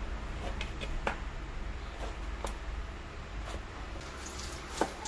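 Kitchen knife slicing vegetables on a plastic cutting board: a few irregular sharp taps as the blade comes down on the board, the loudest near the end.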